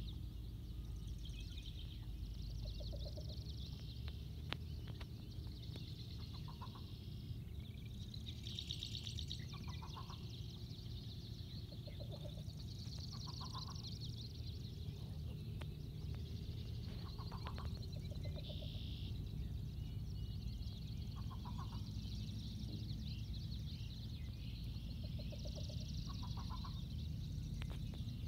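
Two least bitterns counter-calling: short, rapid pulsed coo series every few seconds, the two birds alternating, one lower-pitched than the other. A higher pulsed chatter and a low rumble run underneath.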